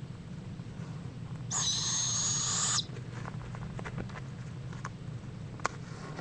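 Barred owl giving one harsh, hissing screech with a shrill high edge, lasting just over a second, over a steady low hum. A few faint clicks follow, and one sharp click near the end.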